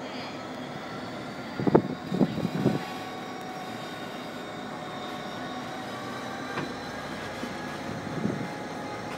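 Train of Mk3 coaches hauled by a Class 57 diesel locomotive running along the line, heard from an open carriage window with wind on the microphone. A quick run of knocks about two seconds in, and another near the end, as the wheels pass over rail joints.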